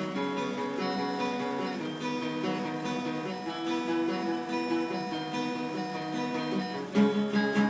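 Acoustic guitar playing an instrumental break between sung verses, ringing chords that change every second or so. About seven seconds in, harder, louder strumming begins.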